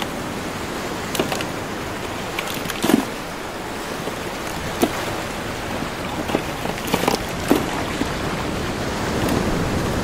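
A steady rushing noise with scattered sharp clicks and knocks of mussel shells being handled in a plastic cooler.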